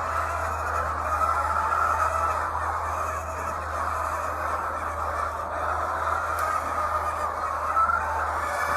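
A flock of many hens clucking and chattering together in a continuous din, over a steady low machine hum.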